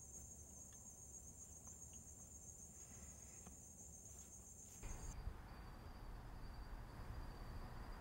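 Faint, steady trilling of crickets at night, which cuts off abruptly about five seconds in. A low background hiss takes its place.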